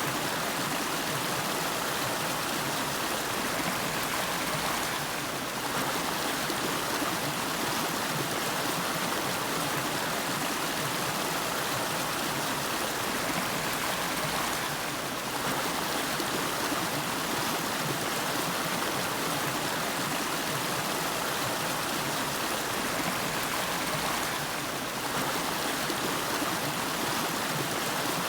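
River water flowing steadily, an even, unbroken stream sound.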